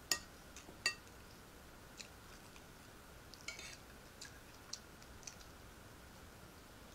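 Large metal serving spoon clinking and scraping against a ceramic plate: two sharp clinks in the first second, then a few softer taps and a brief scrape.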